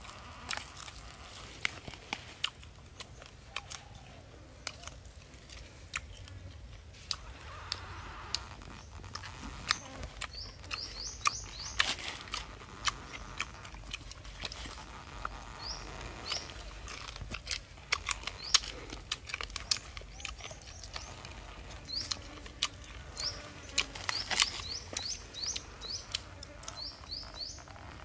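Sharp scrapes and taps as the charred skin is worked off a fire-roasted chicken held on a stick. A small bird chirps in quick runs of short rising notes several times.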